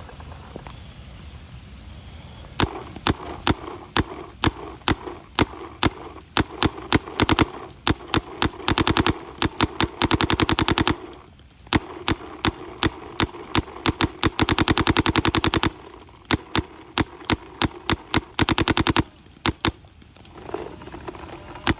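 Planet Eclipse CS3 electronic paintball marker firing: separate single shots at first, coming closer together, then rapid ramping bursts of about ten shots a second, with short pauses between strings.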